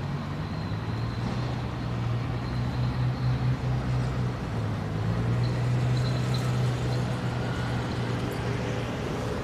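A motor vehicle's engine running with a steady low hum, over general street noise.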